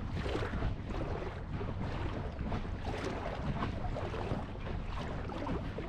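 Lake water splashing and sloshing against the hull of a moving boat in quick, irregular splashes, over a steady low hum.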